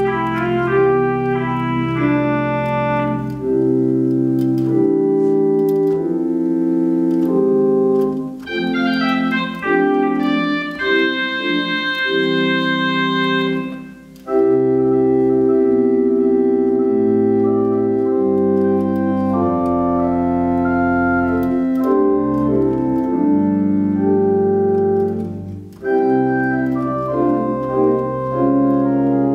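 Organ music: slow, held chords over sustained bass notes, with a brief break about 14 seconds in.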